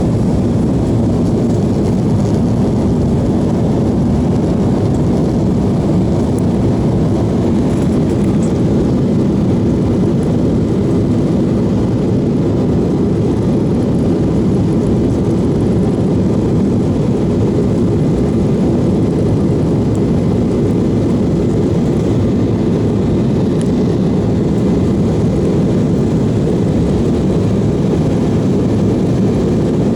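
Steady engine and air noise inside a passenger aircraft's cabin, an even rush with most of its weight low down, holding constant throughout.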